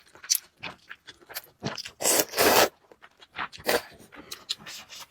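Close-up eating of spicy fried noodles: short wet chewing smacks and mouth clicks, with one loud slurp about two seconds in.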